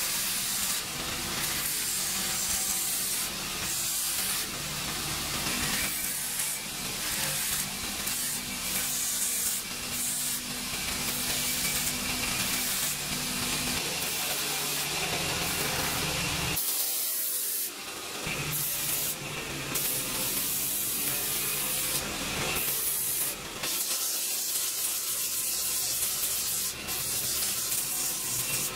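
Electric bench grinder running while a sword's handle cover is pressed against its spinning abrasive wheel, a steady rubbing, sanding hiss over the motor's hum, grinding off sharp edges. The low hum drops out suddenly about 17 seconds in while the rubbing carries on.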